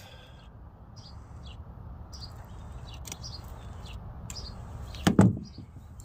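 Side cutters snipping through a wire, a sharp snap with a dull knock about five seconds in, and a fainter click about three seconds in. Birds chirp faintly in the background over a low steady rumble.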